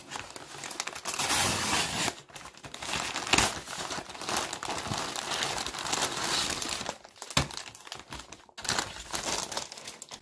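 Large cardboard mailer and its packing being handled and pulled open: irregular crinkling and rustling with a few short pauses.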